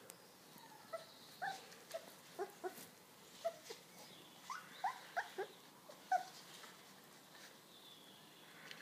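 Young puppies whimpering and squeaking: a string of about a dozen short cries, each sliding up or down in pitch, between about one and six seconds in.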